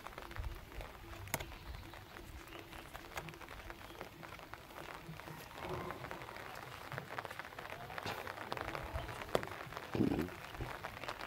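Open-air ambience with irregular fine crackling ticks, a rooster crowing faintly in the distance around the middle, and one short low knock near the end.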